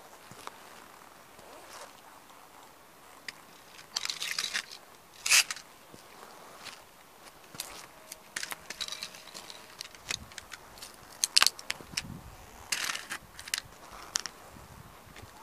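Toy model cars crunching and cracking under a hiking boot stomped on concrete, in several separate bouts of crackling with small clicks of breaking plastic pieces between them.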